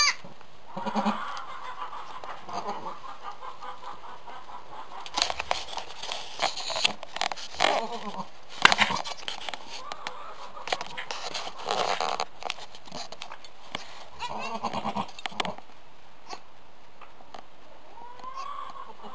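A doe goat's low, cluck-like murmuring calls to her newborn twin kids, coming in short runs with pauses between, with a few scattered knocks and clicks.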